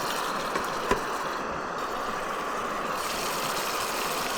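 Steady hiss of a small camp stove heating a pan of steak and potatoes, the food sizzling gently, with a sharp tick about a second in.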